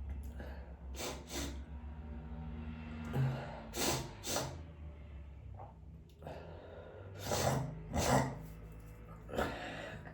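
A person sneezing several times, with gasping breaths drawn in between the sneezes. A low steady hum runs underneath.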